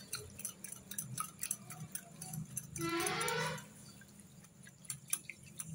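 Wire whisk clicking rapidly against a ceramic bowl as cornflour is beaten into thin carrot juice so that it doesn't form lumps. About three seconds in, a brief rising voice-like sound cuts across the clicking.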